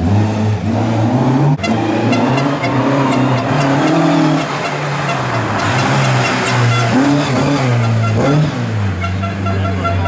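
Rally car engines revving hard, rising and falling in pitch through gear changes, with an abrupt break about a second and a half in. Tyres hiss on the wet road as a car passes in the middle of the stretch.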